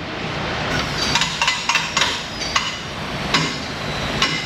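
Shop jack lifting a car on an alignment rack: a series of irregular metallic clinks and knocks, each ringing briefly, over a steady hiss.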